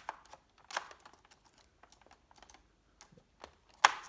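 Samsung R525 laptop keyboard being fitted back into the chassis by hand: scattered light plastic clicks and taps, with one sharp, louder click near the end.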